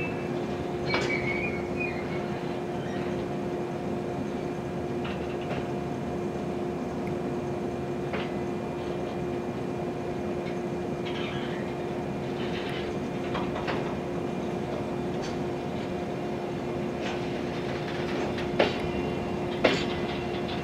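Freight train of flat wagons hauled by an EF65 electric locomotive rolling slowly past, with a steady hum. A brief high wheel squeal comes about a second in, and the wheels click sharply over rail joints a few times near the end.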